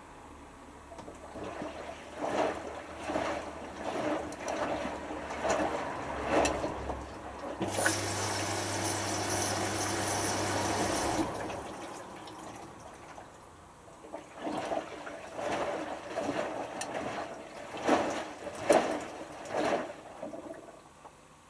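Hotpoint HF8B593 washing machine in its first rinse: the drum tumbles the load, sloshing the rinse water in a regular rhythm. About eight seconds in, the tumbling pauses for roughly three seconds while a steady rush of water with a low hum takes over, then the sloshing resumes.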